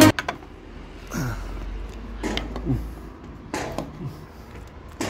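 Climbing a bamboo ladder with a screwdriver in hand: scattered knocks of hand and tool on the rungs and a few short creaks that drop in pitch.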